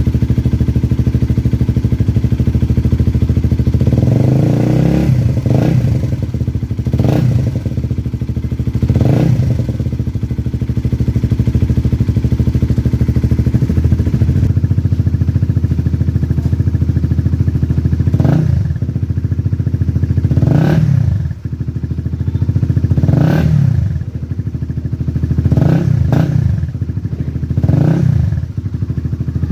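Honda CBR150's single-cylinder four-stroke engine breathing through an Akrapovic aftermarket exhaust, idling and blipped with short throttle revs. A run of four quick revs comes about four seconds in, then it idles steadily for several seconds, then more single blips follow every couple of seconds through the last third.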